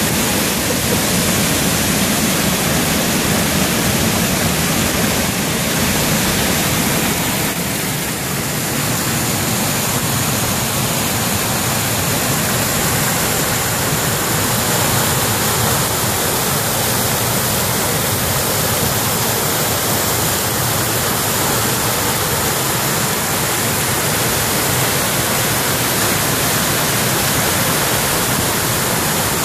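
Water pouring over a concrete dam spillway and weir, a steady loud rush of falling water.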